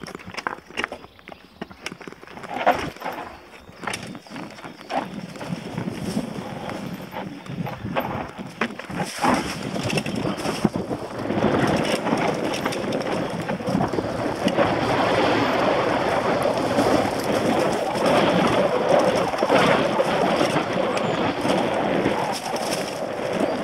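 Mountain bike riding down a dirt forest trail: tyres rolling over leaf litter, stones and roots, with scattered knocks and rattles from the bike in the first ten seconds. From about eleven seconds in it becomes a steadier, louder rushing noise of the ride.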